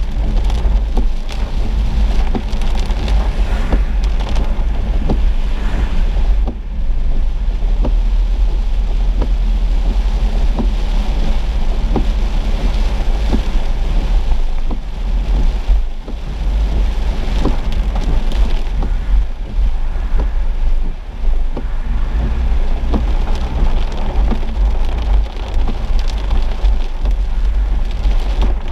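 Heavy rain pattering on a car's roof and windshield in a constant stream of sharp ticks, over a steady low rumble of the car driving on the wet road.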